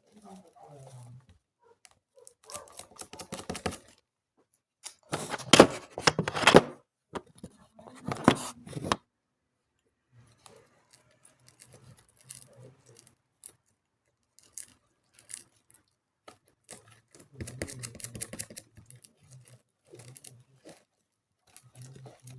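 Homemade slime being squished and pulled apart by hand, making irregular crackling, squelching bursts. The loudest bursts come about five to nine seconds in, with another cluster around seventeen to nineteen seconds.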